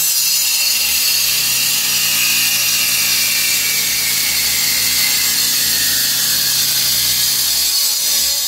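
Ridgid angle grinder with a diamond metal-cutting wheel cutting through protruding bolts, running steadily at full speed. Its whine sags slightly in pitch over several seconds as the wheel bites into the metal.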